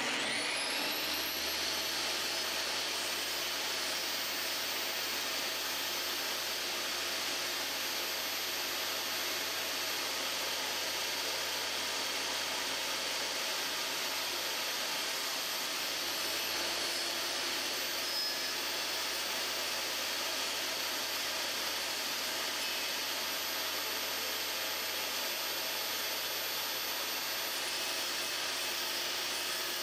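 Table saw switched on, its motor and blade spinning up over about the first second with a rising whine, then running steadily at full speed.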